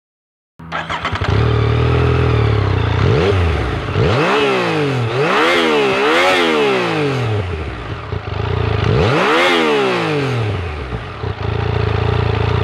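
Yamaha FZ-09's 847 cc inline-three motorcycle engine idling, then revved in four quick throttle blips that each rise and fall, before settling back to idle. The sound cuts in from silence just after the start.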